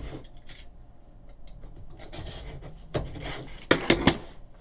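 Cardboard hobby box of Panini America's Pastime baseball cards being handled and pried open: cardboard rubbing and scraping with small clicks, then three sharp knocks near the end.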